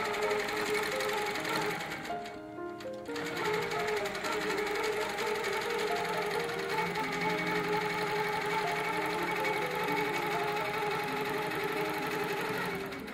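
Longarm quilting machine stitching at a fast steady rate, stopping briefly about two seconds in and then running on, with background music playing over it.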